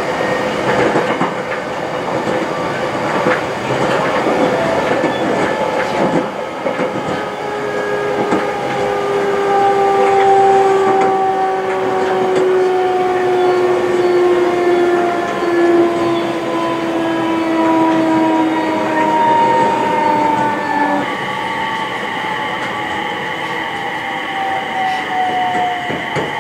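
Electric train heard from inside the carriage: wheels knocking over the rails at first, then the traction motor whine sliding slowly down in pitch as the train slows. About three-quarters of the way through, a higher steady whine sets in.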